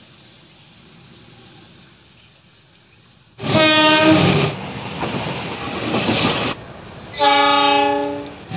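Diesel locomotive horn sounding two blasts of about a second each, some four seconds apart, as a passenger train approaches. Engine and wheel rumble rise and fall between the blasts.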